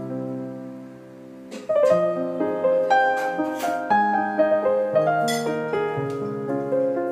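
Background piano music. A held chord fades about a second in, then a livelier piano passage starts and carries on.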